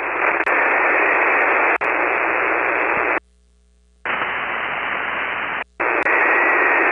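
Single-sideband receiver hiss from an HF transceiver tuned to an empty spot on the 40-metre band, a steady band-limited rush of noise with a couple of sharp static clicks early on. The noise cuts out to near silence for almost a second partway through, and again very briefly near the end.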